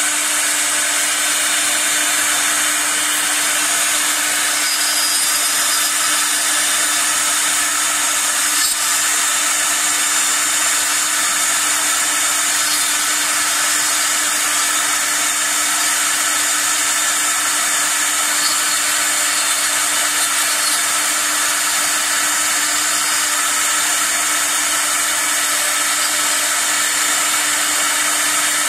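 Wood CNC router's 6 kW air-cooled spindle running steadily while its tapered carving bit cuts a softwood log turned on the rotary axis. The sound is a steady hum under an even hiss, with no change in pitch or level.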